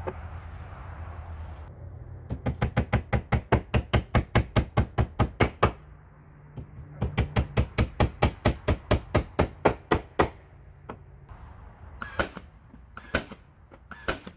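Hammer blows on nails in wooden siding: two quick, even runs of about six strikes a second, each lasting a few seconds, then a few single blows near the end. A short steady hiss comes before the first run.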